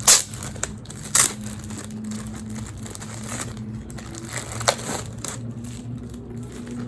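Plastic packaging being handled and opened: two loud, sharp rustles about a second apart at the start, then softer rustling, over a steady low hum.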